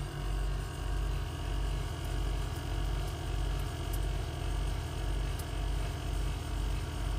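A low, steady hum inside the car's cabin, swelling and fading slightly about every 0.7 s, with a few faint clicks.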